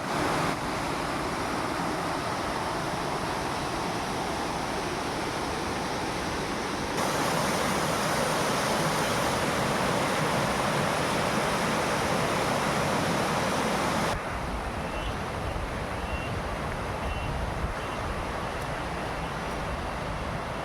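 Steady rush of flowing river water, changing abruptly about 7 and 14 seconds in. The last part is quieter, with a few faint, short high chirps.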